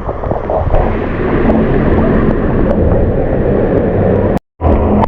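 Wind buffeting the microphone outdoors, a loud, steady rumble that cuts out briefly near the end.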